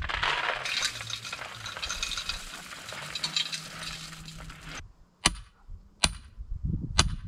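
A gritty, crackling rustle for about five seconds, then three sharp knocks about a second apart, each with a brief high ring.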